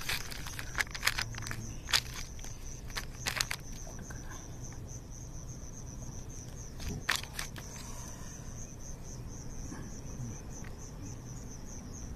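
Crickets chirping in a steady, high, pulsing trill. Over it come sharp clicks and crinkles of the plastic lure package being handled, several in the first few seconds and a couple more about seven seconds in.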